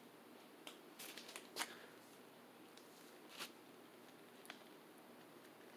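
Faint steady running of a Hampton Bay St. Claire ceiling fan on medium speed, with a few scattered sharp clicks.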